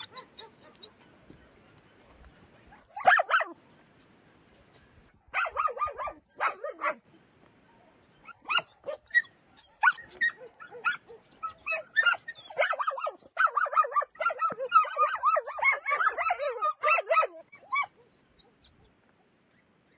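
Dogs barking and yipping in short, high-pitched bursts, building to a rapid run of yips from about twelve seconds in that stops shortly before the end. The sound of young dogs excitedly greeting the neighbouring dogs.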